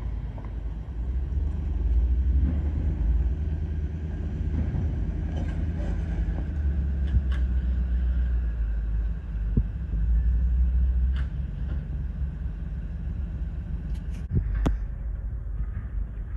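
Steady low rumble of a car on the move, with a few faint clicks and knocks.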